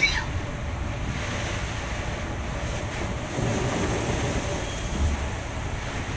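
Heavy rain and road spray hitting a moving Scania bus, a steady rushing noise with a low rumble of the bus underneath.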